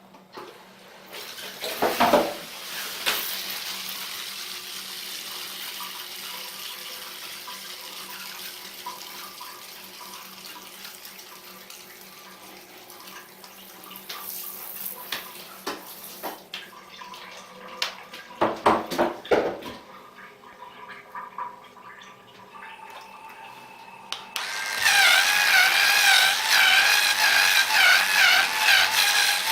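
Water running and splashing with a few clacks. About 25 seconds in, the Hustorm HS-300 electric bathroom scrubber's motor starts: a loud whine that wavers in pitch as the brush works.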